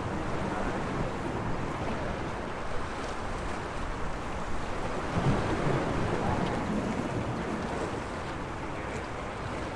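Sea waves washing against the shore, a steady rush that swells louder about halfway through and then eases.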